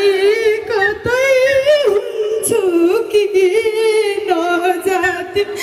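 A woman singing a Nepali ratauli folk song into a microphone, in long held notes with a wavering pitch that rises briefly about one and a half seconds in.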